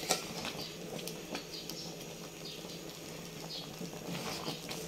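Champorado (rice and cocoa porridge) boiling in an aluminium pot, with a steady bubbling hiss and scattered light clicks and scrapes as a spatula stirs it.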